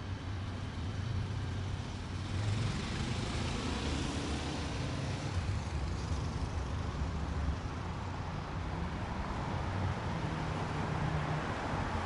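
Road traffic ambience: a continuous wash of passing cars and heavier vehicles with a low engine rumble underneath, swelling slightly about two seconds in.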